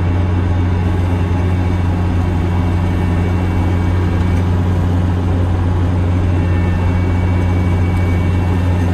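Kubota ER470 combine harvester running steadily while harvesting rice, its diesel engine and machinery giving a loud, constant low drone.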